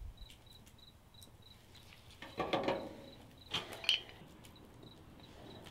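Crickets chirping steadily, about four chirps a second, with two short louder sounds about two and a half and four seconds in.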